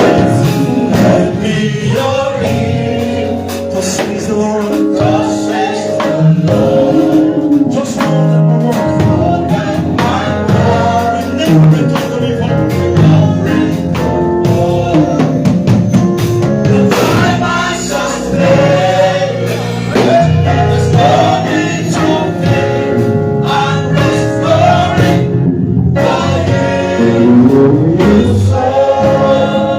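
Gospel music: a group of voices singing with instrumental accompaniment and drums keeping a beat.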